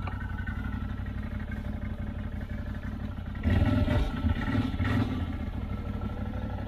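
CFMoto CForce 800 ATV's V-twin engine running steadily under way. About halfway through it gets louder for a second and a half as the throttle opens, then eases back.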